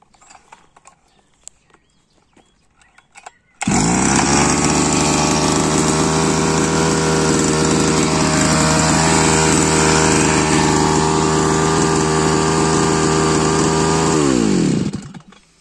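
Petrol brush cutter engine starting abruptly, about three and a half seconds in, and running at a steady speed for about ten seconds. Near the end its pitch falls and it runs down to a stop as it is switched off with the ignition switch.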